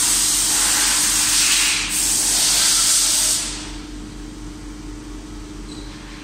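A loud, steady hiss that breaks off for a moment about two seconds in and stops about three and a half seconds in. Under it, and then alone, is a steady machine hum with a constant low tone.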